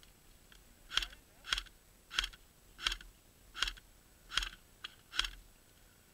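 An airsoft rifle firing single shots, seven sharp cracks a little under a second apart, with a fainter click between the last two.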